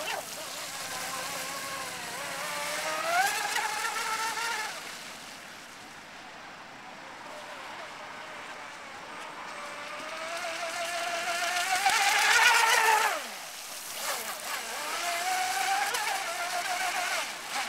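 Brushless electric motor of a Surge Crusher RC speedboat whining at speed over several runs. The pitch climbs as it accelerates, and near the loudest point it drops steeply as the boat passes by. The whine is fainter in the middle stretch.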